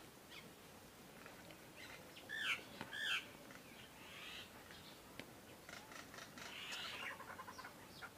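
A bird calling twice, two short arching chirps about half a second apart, over a faint background with light rustling and clicks in the second half.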